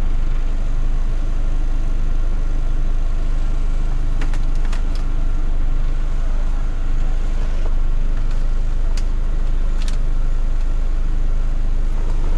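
Peugeot 505 ST's carburetted engine idling steadily with the air conditioning switched on, a few short clicks over it.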